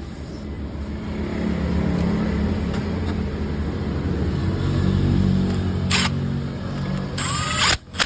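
An engine running steadily in the background, with a click about six seconds in. Near the end comes a brief loud whir of a cordless electric ratchet spinning a bolt in to fasten the new cam chain tensioner.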